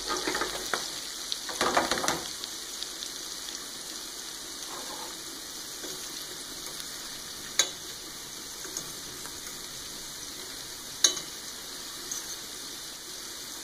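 Breaded squid rings frying in hot oil in a stainless steel pan, a steady sizzle. A fork turning the rings clinks sharply against the pan twice, the second clink the loudest.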